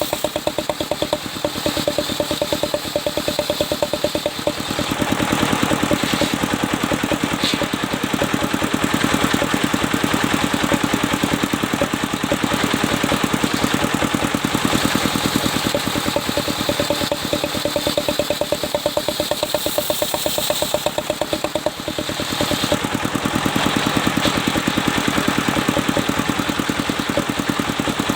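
Engine-driven sawmill saw cutting a mahogany log, over the steady throb of the engine. A few seconds in, the blade bites and a dense cutting noise rises over the engine. It eases briefly about three-quarters of the way through, then comes back.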